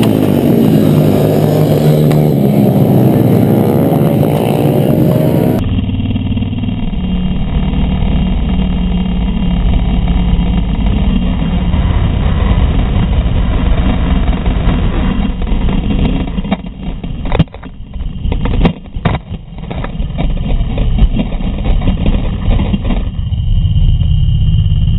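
Small single-cylinder pit bike engines running and revving, the pitch rising and falling. After a cut about five seconds in, a low, muffled engine rumble with wind noise on the action camera, broken by several loud knocks of a crash at around 17 to 19 seconds.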